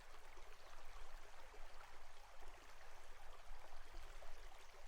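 Babbling brook: water running steadily over stones in a shallow stream.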